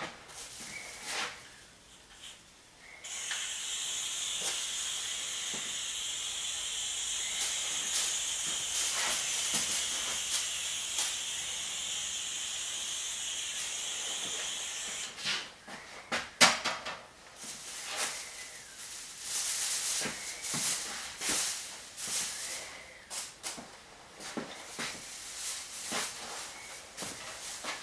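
Aerosol insecticide spray can hissing in one continuous burst of about twelve seconds, starting about three seconds in. After it, irregular rustling and crackling of plastic sheeting being handled.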